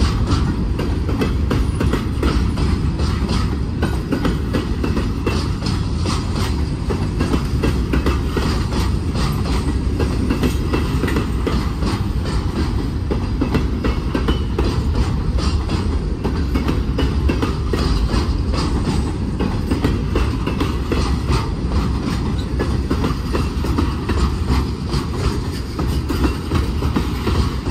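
Freight train of covered hopper cars and tank cars rolling past at close range: a steady heavy rumble of steel wheels on rail, with a running patter of clicks as the wheels cross the rail joints.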